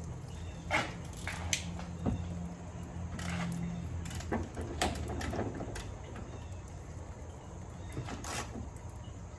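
Hand tools working on metal under a car: several short, irregular scrapes and clinks over a low steady hum.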